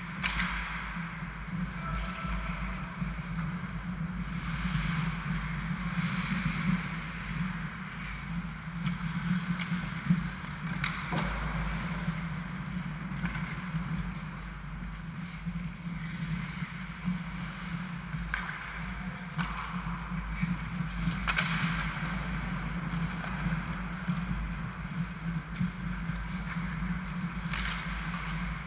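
Ice hockey rink sound: skates scraping on the ice as the play moves, over a steady low hum, with a few sharp clacks of sticks and puck.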